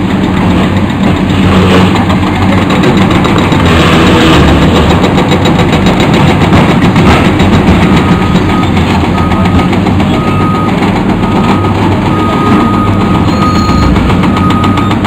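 Several Caterpillar hydraulic excavators running their diesel engines while their crusher jaws chew through a concrete overpass, with a dense rapid crackle and crunching of breaking concrete and falling rubble. From about eight seconds in, a reversing alarm beeps repeatedly.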